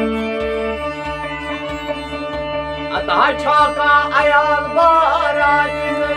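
Kashmiri folk song: a harmonium sustains steady chords over a regular low drum beat about twice a second, with a plucked rabab. A man's voice comes in singing a wavering, ornamented line about halfway through.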